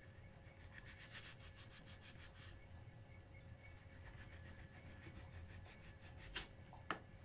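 Faint knife strokes: a kitchen knife sawing through apple flesh in quick short strokes, with two sharper taps near the end as the blade meets the plastic cutting board.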